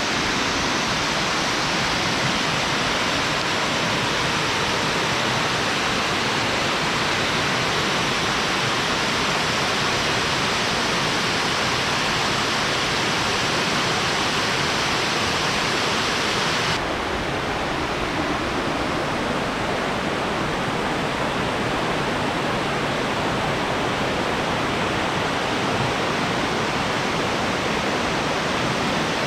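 Steady rushing of a large waterfall, Sanbon-daki, a dense wash of falling water; a little past halfway the hiss abruptly turns duller and less bright.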